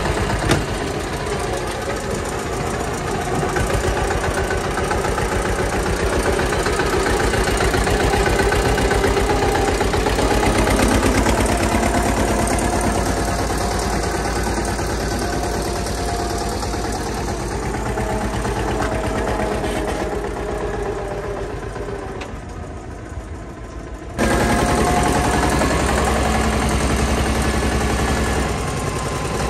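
Eicher 242 tractor's diesel engine chugging steadily as it pulls a loaded trolley, with a fine regular beat. It eases off a little, then comes back abruptly louder about 24 seconds in.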